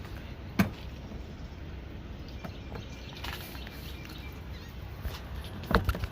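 A sharp knock about half a second in and a quick run of knocks near the end, over a steady low outdoor rumble: a new truck air filter and its housing being handled and pushed into place.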